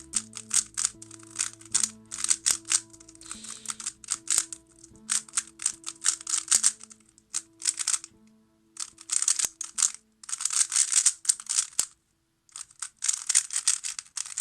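QiYi WuWei M speedcube being turned fast: rapid runs of plastic clicking and clacking as the layers snap round, with short pauses between bursts of turning. Soft background music underneath.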